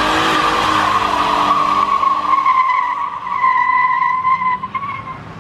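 Pickup truck doing a burnout: a steady, loud tyre squeal over the engine revving, fading near the end as the truck pulls away.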